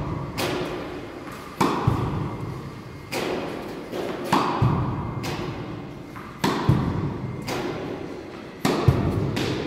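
Tennis balls being struck by a racquet and bouncing on the hard court, a sharp impact every second or so, some in quick pairs, each echoing in the large hall.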